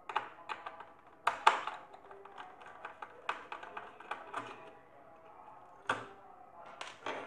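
Irregular sharp clicks and taps of a screwdriver, screws and hands on a Jack F4 sewing machine's plastic control-box housing, as the control board is unscrewed to be taken out.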